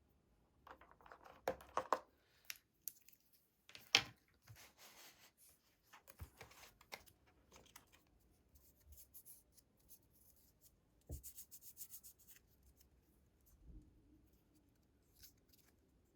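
Apple Watch box packaging being opened by hand: paper tearing and rubbing, with scattered sharp taps and a quick run of clicks about eleven seconds in.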